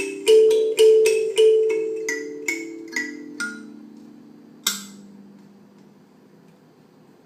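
Background music of struck, ringing notes over low held tones. The beat slows and ends on a last strike near the middle, then the music fades out.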